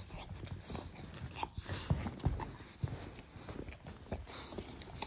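Cane Corso puppy snuffling and nuzzling at a man's face right up against the microphone, with irregular soft knocks and rustles of movement.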